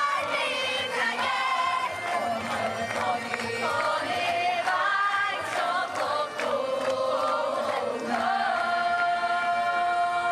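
A group of voices singing a song. About eight seconds in, they settle on a long held note.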